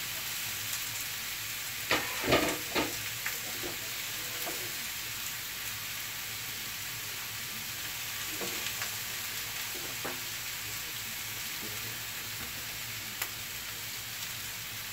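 Oil-marinated chicken breasts sizzling steadily on a hot, oiled electric grill. A few clatters of utensils about two to three seconds in, and a single tick near the end.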